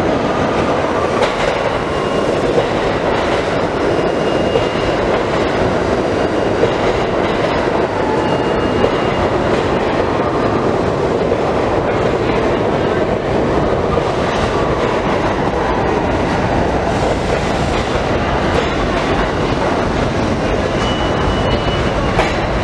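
New York City subway train running along the track through an underground station, wheels clattering over the rail joints, with a few brief faint high squeals.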